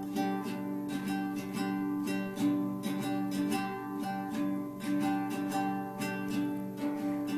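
Nylon-string classical guitar strummed in a steady rhythm, chords ringing on between the strokes.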